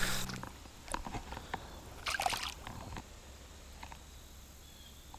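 Creek water sloshing and splashing as a landed freshwater drum is released back into the water, a few short splashes with the biggest about two seconds in.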